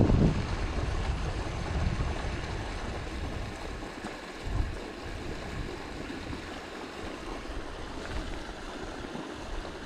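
Steady rush of a high, rain-swollen creek flowing, with low buffeting on the microphone near the start.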